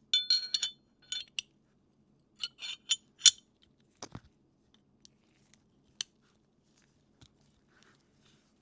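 Metallic clicks and clinks of a Glock 45 pistol being handled: a quick run of ringing clicks at the start, another run a couple of seconds in with the loudest click, then a few scattered single clicks.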